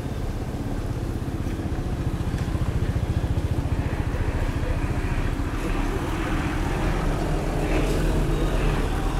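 An engine running steadily, growing somewhat louder partway through.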